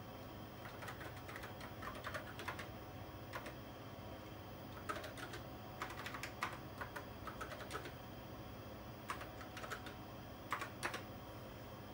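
Keystrokes on a TRS-80 Model 16 keyboard: several short bursts of typing, each a quick run of clicks, with pauses between them.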